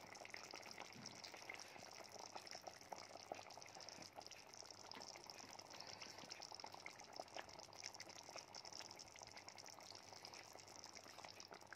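Thick tamarind fish curry bubbling at a boil in a pot: faint, irregular small pops of bubbles breaking through the gravy.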